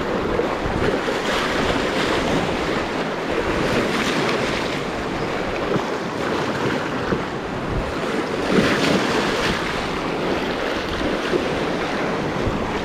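Rushing river whitewater: a steady wash of moving water, with wind buffeting the microphone.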